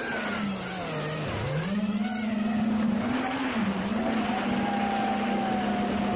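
Beagle Drone Kit 2 FPV quadcopter's 2300KV brushless motors and propellers whining, picked up by a camera on the drone itself. The pitch drops and rises with the throttle, dipping deepest about a second in, over steady wind rush from flight.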